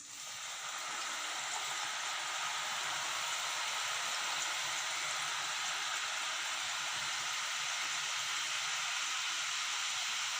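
Gram- and rice-flour dough hitting hot oil and deep-frying with a steady sizzle. The sizzle starts suddenly and swells over the first second.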